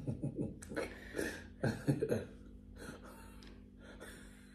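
Soft, breathy laughter from a couple in a run of short bursts over the first two seconds or so, then fading to quiet breathing.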